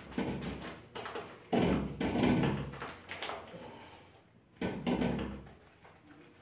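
Several separate knocks and thuds of kitchen containers or utensils being handled and set down, the loudest about one and a half to two seconds in and another near five seconds in.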